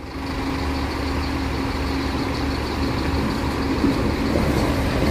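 Diesel engine of a front-engined Mercedes-Benz OF-1721 coach running steadily, a low rumble with a steady hum. It swells in over about the first second.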